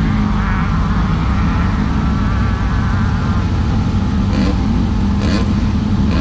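Class 10 desert race buggy's engine running hard at speed, its pitch wavering up and down over a steady low rumble, with a couple of sharp knocks in the last two seconds.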